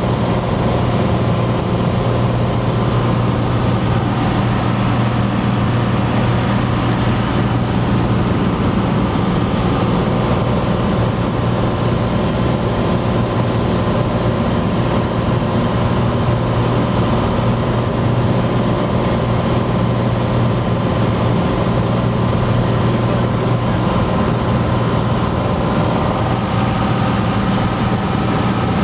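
Steady drone of a Cessna 182's six-cylinder Lycoming engine and propeller, heard inside the cabin during the approach, with a slight change in its tone near the end.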